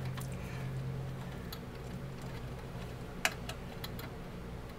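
A few light clicks and taps of fingers handling wires and a switch inside a sheet-metal case, the sharpest a little past three seconds in, over a steady low electrical hum.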